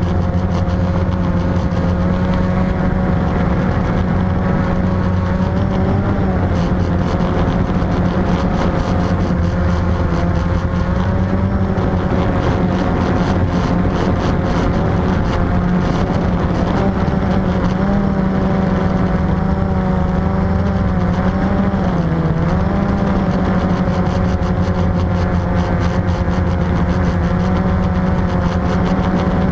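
Quadcopter's electric motors and propellers buzzing steadily in flight, with a brief dip and wobble in pitch about two-thirds of the way through.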